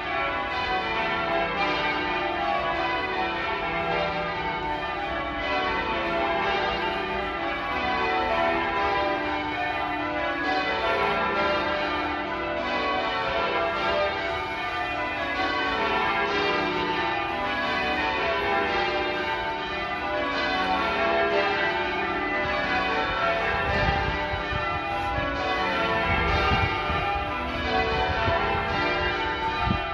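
Manchester Cathedral's tower bells change ringing: the bells struck one after another in a steady, unbroken run of changes. A low rumble sits briefly under the bells in the last few seconds.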